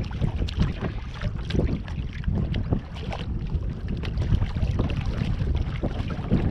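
Wind buffeting the microphone in a steady rumble, with water splashing and short knocks as a hooked fish thrashes at the surface beside a kayak.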